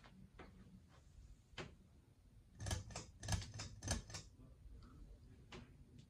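Irregular light clicks and taps over a faint steady hum, with a burst of louder, rapid clicks about halfway through.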